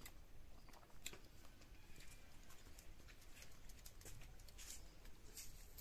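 Near silence: quiet room tone with a few faint, scattered small clicks.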